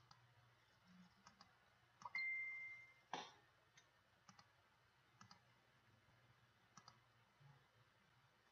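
Faint computer mouse clicks, scattered and a few in quick pairs, as parts of an image are clicked on. About two seconds in, a short steady high beep sounds for just under a second, followed at once by a sharper, louder click.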